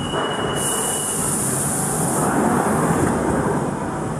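London Underground train running just after its doors have closed: a steady low rumble, with a thin high whine that stops about a second in and a high hiss from about half a second to two seconds in.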